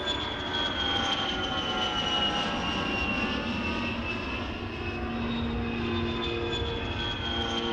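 Fixed-wing airplane engines droning as the planes fly past, their pitch slowly falling over a steady low rumble.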